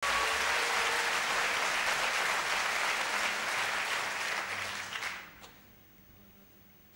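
Audience applauding, a dense steady clapping that dies away about five seconds in.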